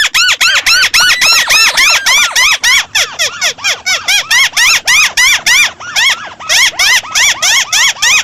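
White-browed crake calling: a fast chattering run of nasal notes, each rising and falling in pitch, about five a second, with a brief pause about six seconds in.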